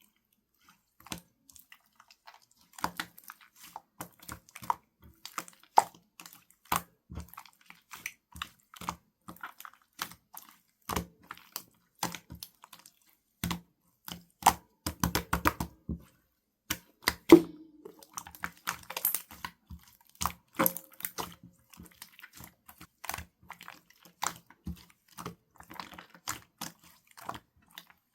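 Runny slime with a raw-egg texture being squished and pressed by hand, giving irregular wet clicks and small pops, with a dense run of them about halfway through.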